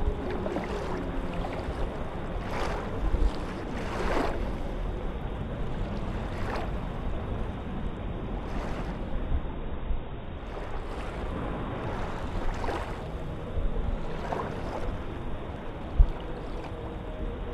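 Small waves lapping and sloshing at the waterline close to the microphone, a short splashy wash every second or two over a low steady rumble. There is a single low bump near the end.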